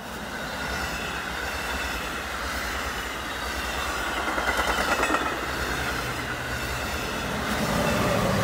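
NJ Transit multilevel push-pull train passing close by: steel wheels rumbling and clattering on the rails, with a thin high wheel squeal. The sound swells near the end as the ALP-45DP locomotive pushing at the rear goes past, its diesel engine adding a low drone.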